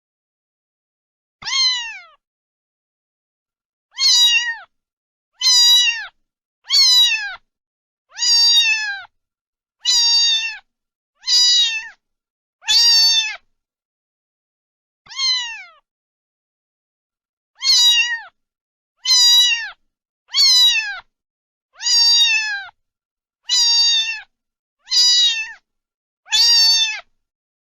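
Cat meowing over and over, about sixteen short, high-pitched meows, each dropping in pitch at its end, with a longer pause midway.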